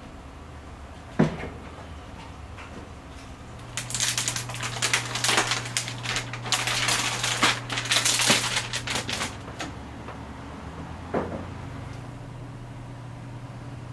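Clear protective plastic wrap crinkling and crackling as it is peeled off a new iMac's screen, for about six seconds in the middle. A sharp knock about a second in and a single click near the end.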